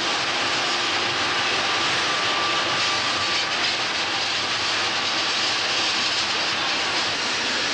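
Paris Métro train running at speed, a loud steady rushing noise heard from on top of the carriage, with a faint high whine for a moment about two seconds in.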